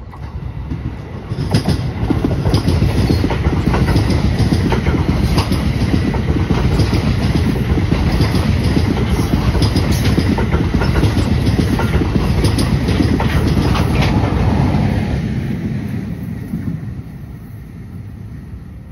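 NJ Transit commuter train of bilevel Multilevel coaches passing close: a loud rumble with wheels clicking over rail joints. It builds about a second and a half in and fades away over the last few seconds.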